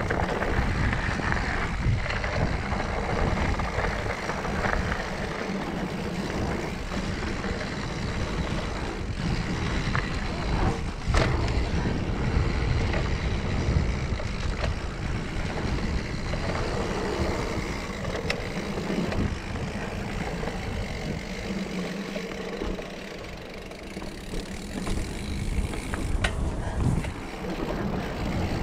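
Mountain bike riding dry dirt singletrack: wind noise on the handlebar camera's microphone over knobby tyres rolling on dirt and the bike rattling, with a few sharp clacks over bumps. It is briefly quieter about three-quarters of the way through.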